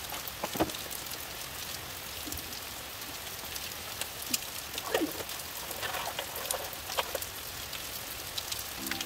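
Steady rain falling on wet tiles, with a few sharper taps about half a second, five and seven seconds in.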